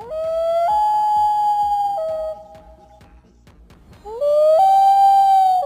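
Common loon wailing twice: each call slides up, jumps to a higher note and holds it for a second or more. The first wail drops to a lower note before it ends; the second begins about two seconds after the first has faded.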